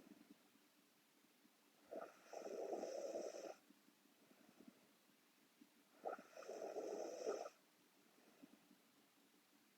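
A sleeping woman snoring: two snores about four seconds apart, each a short catch followed by a rasping stretch of about a second and a half.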